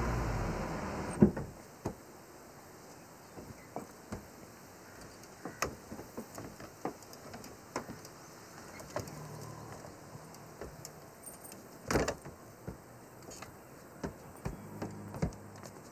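Ambulance engine running, cut off suddenly about a second in, followed by scattered clicks and knocks as a stretcher is loaded into the ambulance's open rear, with one louder clunk about twelve seconds in.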